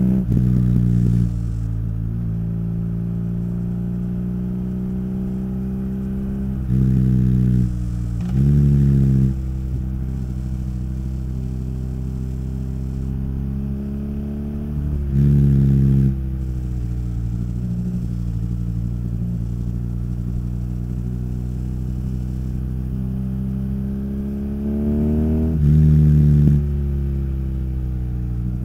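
Exhaust note of a BMW R nineT's boxer twin through its Akrapovic exhaust, heard on the move. The bike mostly cruises steadily, with the pitch climbing under throttle and dropping back several times. There are four brief louder surges where the pitch jumps.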